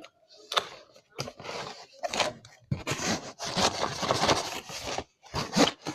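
Tape being pulled and torn off a toy kit's cardboard packaging, with scraping and rustling of the package in short, irregular stretches.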